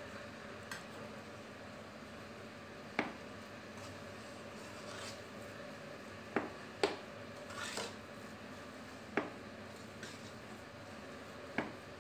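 Long metal spoon stirring a thick, crumbly flour-and-ghee mixture in an aluminium kadhai: soft rubbing broken by several sharp clinks as the spoon knocks the pan's sides and rim, about five of them at uneven intervals over a steady low background hum.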